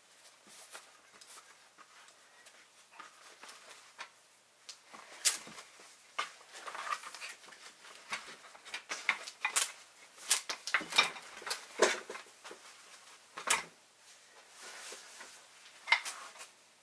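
Handling sounds of a suede leather sheath being folded and tied shut with a leather cord wound around an antler toggle: soft rustling with irregular clicks and taps, busiest in the middle.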